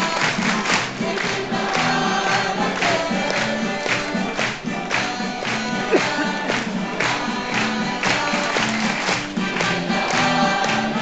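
A group of restaurant waiters singing together over recorded backing music with a steady beat and a repeating bass line.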